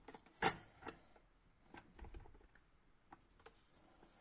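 Hands handling the plastic lid of an electric lunch box. There is one sharp plastic click about half a second in, another smaller one soon after, then a few faint taps.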